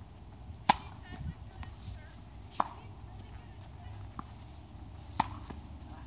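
Tennis ball struck by rackets in a rally: a sharp pock as the serve is hit, under a second in, then two more hits about two and a half seconds apart, with fainter knocks between them.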